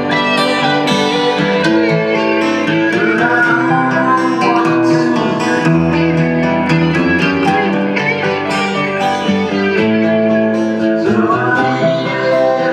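Guitar music with plucked strings, played back through a BRZHiFi class D amplifier and speakers.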